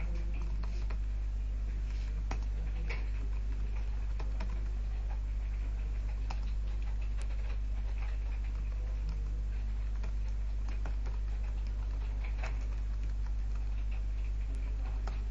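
Computer keyboard typing: scattered, irregular keystrokes with short pauses between them. A steady low hum runs underneath.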